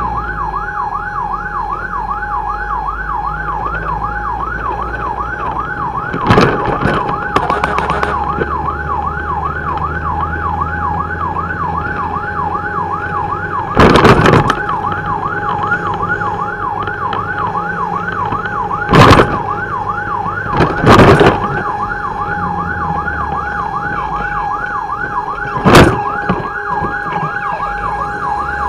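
Fire pumper's electronic siren on a fast yelp, its pitch sweeping up and down several times a second without a break, over the truck's engine running. Several short, loud horn blasts cut through it, the loudest sounds heard.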